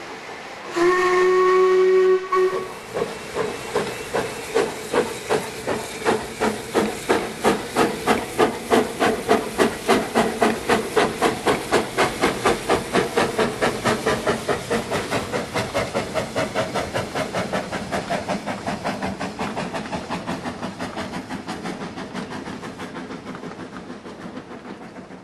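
Narrow-gauge steam locomotive sounding its whistle for about two seconds, then starting away. The exhaust beats start slow and quicken, grow louder, then fade away steadily.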